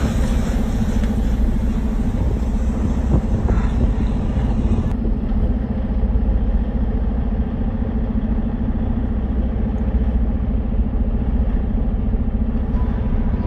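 Semi-truck diesel engine running, a steady low drone with an even, rapid pulsing that holds throughout.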